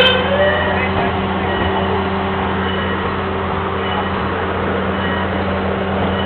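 Amusement-park train running, heard from inside an open passenger car: a steady running noise with a low hum. The tail of the train's whistle fades out right at the start.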